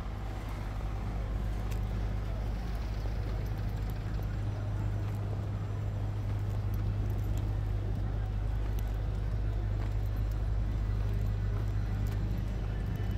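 Steady low rumble of road traffic, with a constant deep hum and no clear single event standing out.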